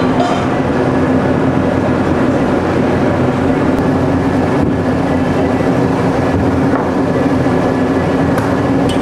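A steady, loud mechanical drone with a constant low hum throughout.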